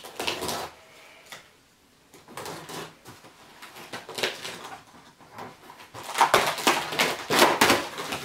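Cardboard shipping box being opened by hand: packing tape cut and pulled, flaps and packaging inside rustling and crinkling. The crackling is thickest and loudest in the last two seconds.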